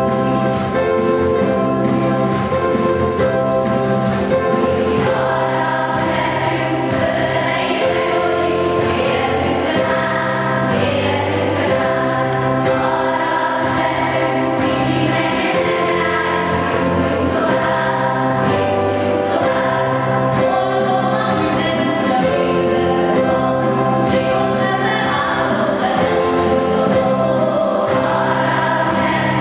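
School choir singing a slow song with instrumental accompaniment: held chords changing every second or two over a steady low part.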